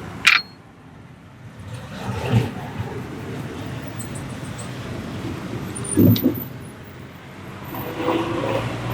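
Steady street traffic hum, broken by a sharp slap just after the start and duller thumps about two and a half and six seconds in, from the barber's hands striking the customer's head and back during the massage.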